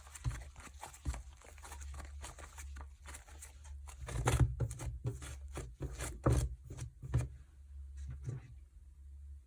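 Slime being squished and worked by hand, making dense, irregular sticky clicks and pops. The pops come in louder clusters around the middle and die away near the end.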